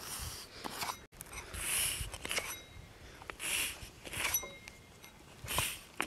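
Round metal dough cutter pressed into soft risen dough in a metal pan and lifted out again, several times over. Each cut gives a pair of short, soft hissing puffs.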